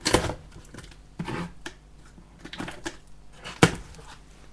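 A hat's packaging being handled and opened: irregular rustles and knocks, with one sharp click about three and a half seconds in.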